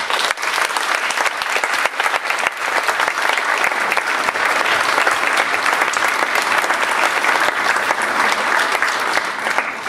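Audience applauding: dense clapping that starts suddenly, holds steady and begins to fade near the end.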